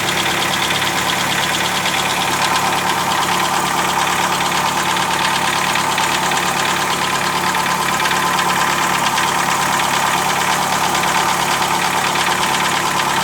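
2007 Chevrolet Celta's four-cylinder Flex Power engine idling steadily, with a fast, even ticking running through it: a noise of unknown cause that the owner is trying to identify.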